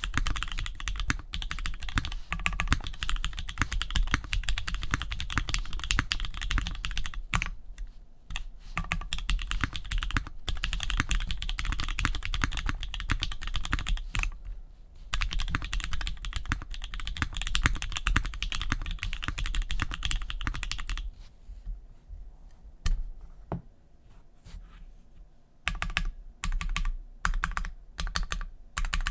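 Typing on a custom 60% mechanical keyboard with a POM plate, lubed JWK Jwick Black linear switches and GMK keycaps: a fast, dense run of keystrokes for about twenty seconds with two brief pauses, then slower, scattered keystrokes near the end.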